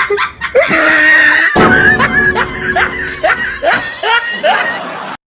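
Shrill voice-like meme sound effects, laughing or screaming, with a run of short rising squeaks about two a second through the middle.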